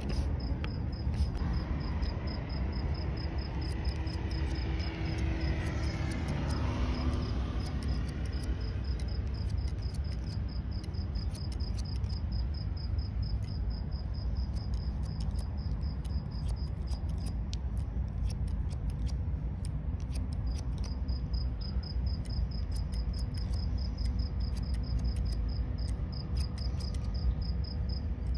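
Barber's scissors snipping hair in quick runs of sharp clicks, over a steady insect chirping with a fast, even pulse that drops out for a few seconds past the middle.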